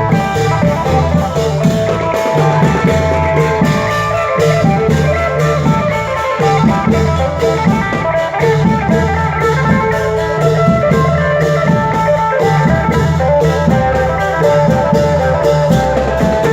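Thai band music in a fon dance rhythm: a steady drum beat under a plucked-string melody with sustained notes, playing without a break.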